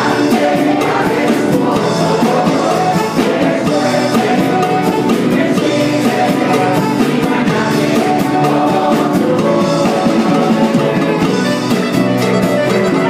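Live band music led by three saxophones playing together, with voices singing along and a steady percussion beat.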